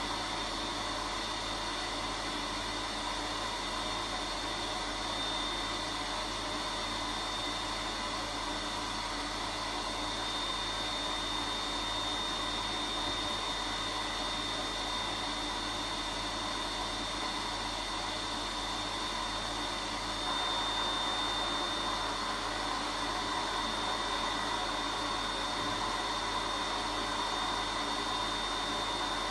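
Vacuum cleaner running steadily with a constant high whine, getting a little louder about twenty seconds in.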